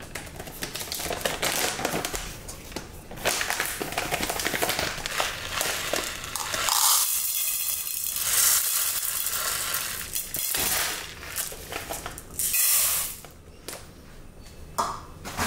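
Dry short-grain rice poured from its bag into a plastic measuring cup and tipped into a rice cooker's metal inner pot, the grains rattling and pattering, with the bag crinkling, in several pours.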